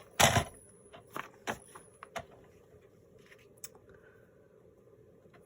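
Paper being trimmed and handled at a craft table: a short rasping swish just after the start, then several sharp clicks and taps over the next two seconds, fading to faint handling.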